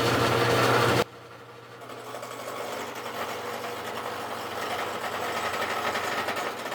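Rockwell wood lathe running with a steady hum. About a second in the sound drops sharply, then builds gradually into a continuous rough cutting noise as a turning tool works the spinning wooden bat blank.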